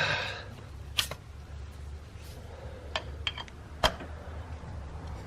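Hand tools working on a cylinder head bolt: scattered sharp metallic clicks and knocks from a breaker bar and socket turning the bolt through its final angle-torque step. There are about four of them, the loudest near the end, over a low steady hum, with a short vocal sound at the very start.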